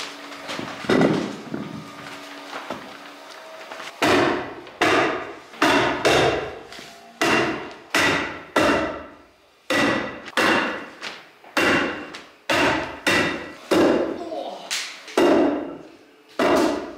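Hammer strikes on wood framing, fastening a sheet of underlayment up the side of a door opening: a few light knocks, then about four seconds in a steady run of sharp blows, about two a second, each with a brief ring.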